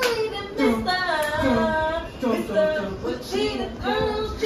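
Women's voices singing, with long held notes that slide up and down.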